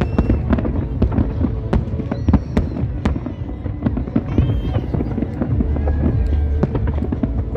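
Fireworks display: a dense, continuous run of sharp bangs and crackles from bursting aerial shells over a steady low rumble.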